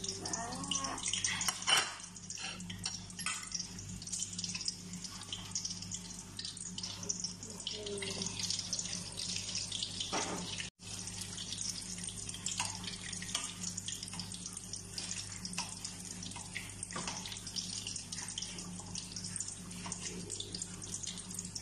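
Hot oil sizzling and crackling steadily as egg-and-moringa patties fry in a stainless steel pan. A spatula scrapes and clanks against the pan, loudest about two seconds in.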